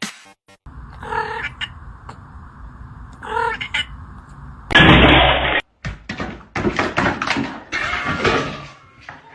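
A cat meows twice, a couple of seconds apart. Then comes a loud burst of noise lasting about a second, followed by a run of knocks and thuds.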